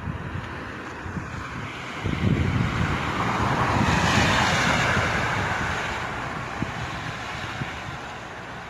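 A vehicle passing by, its noise swelling for a couple of seconds and then fading away, with wind buffeting the microphone.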